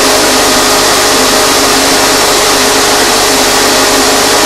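The central impeller of a model Coanda-effect disc aircraft running steadily: a loud, even rush of air with a constant hum, as it draws air in at the centre and blows it out over the disc's surface.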